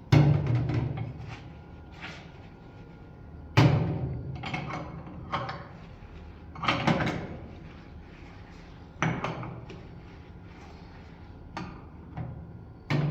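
A run of sharp knocks and clattering, a few seconds apart, each followed by a short rattle; the loudest come right at the start and about three and a half seconds in.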